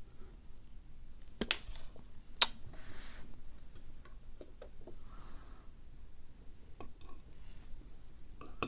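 Small metal clicks and clinks of lock pins and springs being handled and set down as a pin-tumbler lock is taken apart. Two sharper clinks come about one and a half and two and a half seconds in, then scattered faint ticks.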